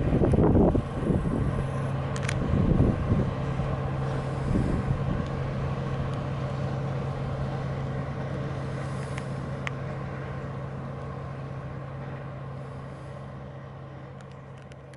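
A distant engine's steady low drone, fading slowly as it moves away. Low wind rumble on the microphone in the first second.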